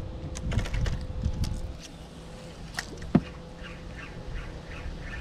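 Birds, likely waterfowl, calling in short repeated notes over a low rumble, with a few light clicks early and one sharp knock a little past three seconds in.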